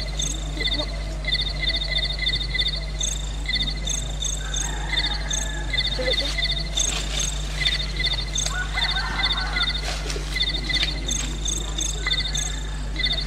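Insects chirping in short, repeated, evenly pitched pulses, like crickets, over a low steady hum.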